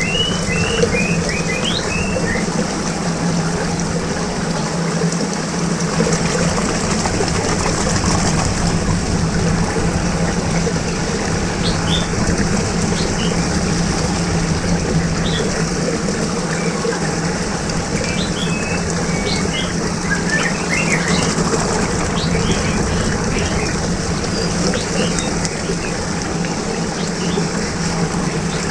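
Steady rushing of swirling water over a constant low hum, with small birds chirping now and then.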